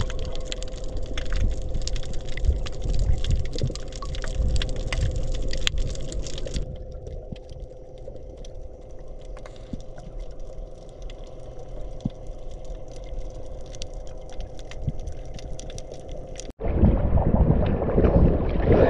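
Underwater sound picked up by a diving camera: a steady muffled rumble of sea water with scattered faint clicks. Near the end it cuts suddenly to the surface, where choppy waves splash and wind buffets the microphone, much louder.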